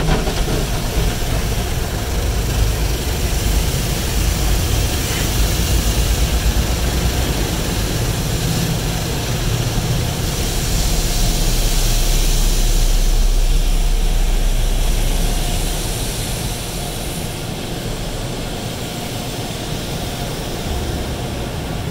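Automatic car wash heard from inside the car: water jets and wash machinery spraying the car in a steady rushing hiss over a deep rumble. It is loudest in the middle and eases slightly after about fifteen seconds.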